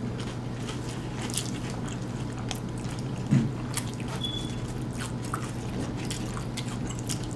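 Close-up chewing and biting of hard-shell tacos: scattered sharp crunches and wet mouth sounds over a steady low hum, with one brief louder low sound a little over three seconds in.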